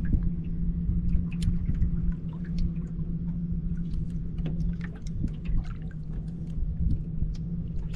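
Wind rumbling on the microphone, with small waves lapping and slapping against the boat's hull in many quick ticks. A steady low hum runs underneath.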